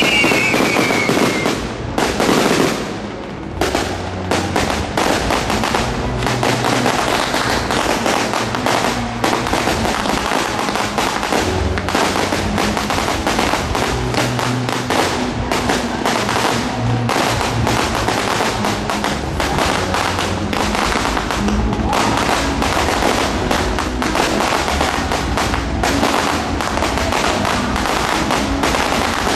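Fireworks display: ground fountains and small aerial shells giving a dense, continuous crackle of many quick bangs. A falling whistle dies away in the first second or so.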